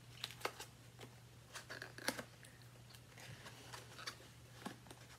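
Faint, scattered crinkles and clicks of a plastic candy package being handled, with a low steady hum underneath.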